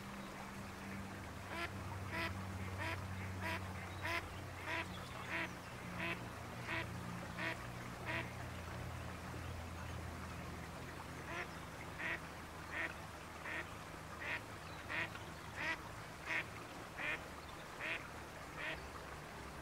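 Mallard duck quacking in two long runs of evenly spaced quacks, about one and a half a second. The first run starts about a second and a half in and stops around eight seconds; the second runs from about eleven seconds until near the end.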